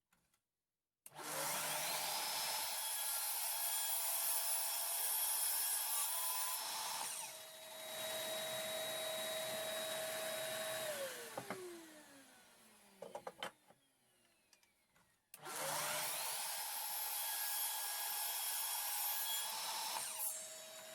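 Electric miter saw cutting wood to length. Its motor whines up to speed and runs for several seconds, then winds down with a falling whine and a few clicks; it starts up again a few seconds later for a second cut.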